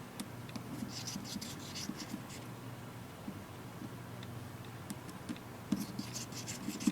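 Small Phillips screwdriver turning out tiny screws from a tablet's internal frame: light scratching and clicking of the bit in the screw heads, in clusters about a second in and again near the end, over a steady low hum.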